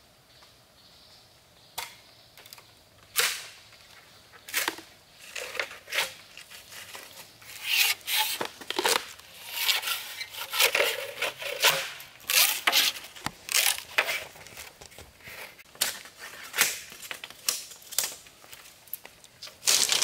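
Green bamboo pole being split lengthwise with a knife: a quick run of sharp cracks and tearing splits that begins about two seconds in.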